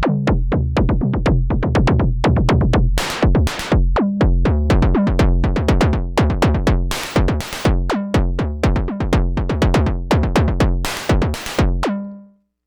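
Moog DFAM analog drum synthesizer playing a rapid sequenced electronic beat on its kick-and-snare patch: low pitch-dropping kick thumps and bright noise-snare hits, triggered step by step over MIDI from an external sequencer. The pattern stops abruptly near the end, leaving a short ringing tone.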